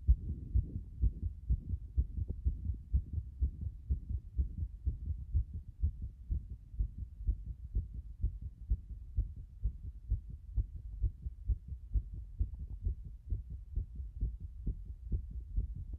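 A fast heartbeat: rapid, regular low thumps.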